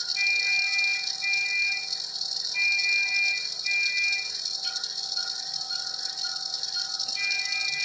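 Patient monitor alarm beeping: pairs of long, high, steady beeps alternating with runs of shorter, lower beeps about twice a second, over a steady hiss.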